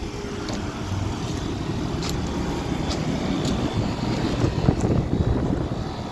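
Outdoor central air-conditioner condenser units running, a steady low rumble of compressor and fan that swells a little in the middle, with a few faint ticks.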